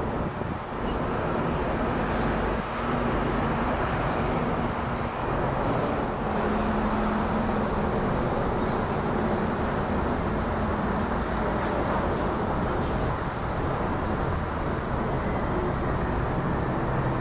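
Distant rumble of an Airbus A330-900neo's Rolls-Royce Trent 7000 turbofans as the airliner flies high overhead: a steady, even roar with a faint low hum in it.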